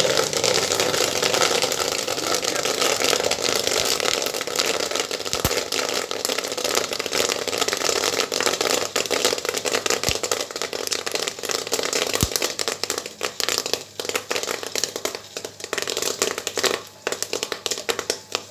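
Corn popping in a popcorn machine's stirred kettle as a dense crackle of many pops. The pops thin out over the last few seconds as the batch nears done.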